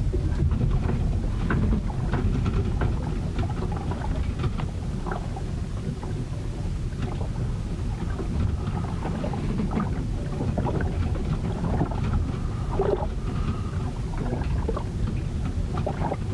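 A storm heard on board a ship: a heavy, steady low rumble of wind and water, with many short knocks and clicks scattered throughout.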